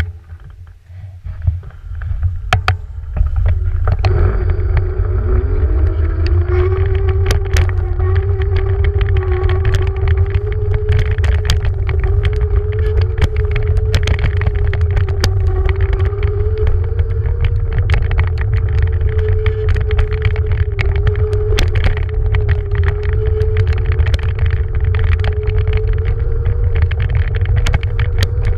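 Beaster BS11 electric scooter's motor whining as the scooter pulls away across sand, the whine rising in pitch for a couple of seconds about four seconds in and then holding steady. Heavy low rumble of wind buffeting the microphone, with frequent short clicks and knocks from the ride.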